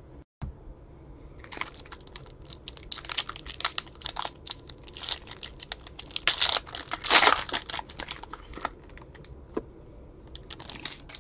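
Foil wrapper of a trading-card pack crinkling and tearing as it is pulled open by hand, in an irregular run of crackles that is loudest about seven seconds in.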